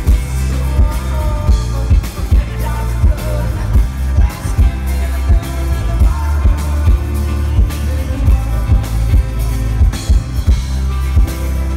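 Live band music through a concert PA: electric bass, drum kit and electric guitar, with the bass heaviest and a steady drum beat, as heard from the crowd.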